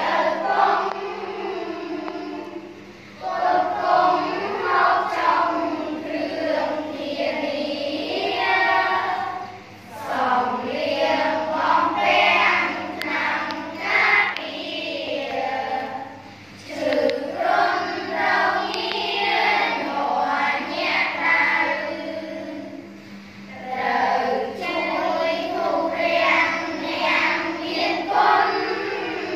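A class of schoolchildren chanting a Khmer verse in unison to a sing-song melody, in phrases a few seconds long with short breaks between them.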